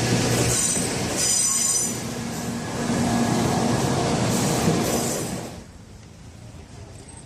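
Doctor Yellow 923-series Shinkansen train running past, with thin high wheel squeal in the first couple of seconds; the train noise drops away sharply about five and a half seconds in.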